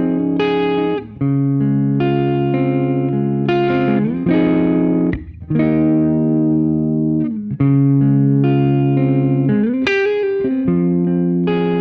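Electric guitar overdriven through a Catalinbread Dirty Little Secret MkIII pedal, playing sustained distorted chords that change every second or two, with short breaks between them.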